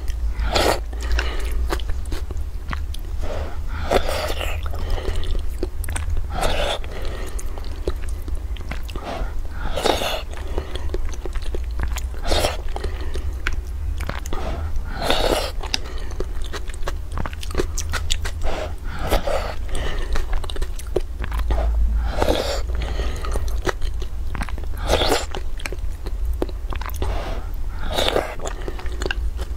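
Close-miked eating sounds: spoonfuls of a soft, wet dish taken in and chewed, with many small wet mouth clicks and a louder slurp or mouthful every two to three seconds. A steady low hum runs underneath.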